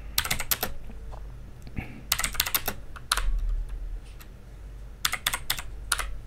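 Typing on a computer keyboard: short bursts of quick keystrokes with brief pauses between them.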